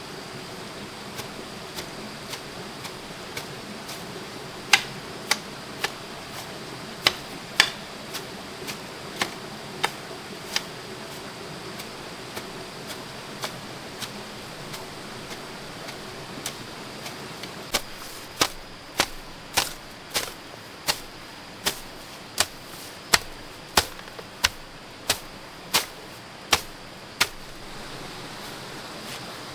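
A hand tool striking repeatedly in sharp, short knocks over a steady outdoor hiss. The knocks are scattered and uneven at first, then settle past the middle into a steady run of about one and a half strokes a second before stopping near the end.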